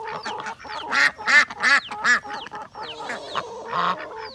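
Several ducks quacking in short, repeated calls, with thin high chirps falling in pitch in between.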